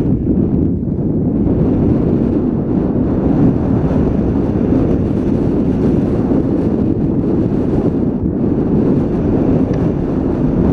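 Wind rushing over a helmet-mounted GoPro's microphone as a skier runs downhill through deep snow: a loud, steady, low rumble.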